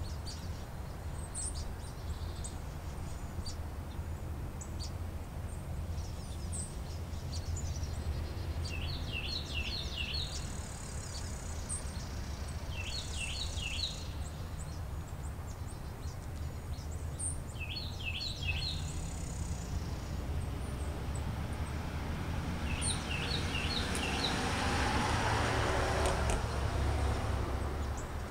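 A small songbird repeats a short phrase of quick high notes every few seconds over a steady low rumble of outdoor background noise. A louder rushing swell builds near the end.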